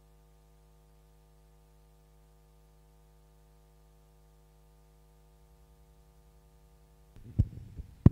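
Faint steady electrical mains hum from the sound system, a stack of even tones. Near the end come a few sharp loud thumps with a short rumble.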